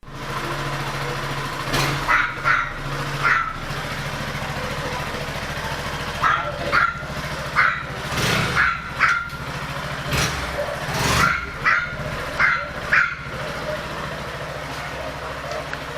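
A dog barks about a dozen times in short bursts, from about two seconds in until about thirteen seconds in, over the steady running of an idling motorcycle engine.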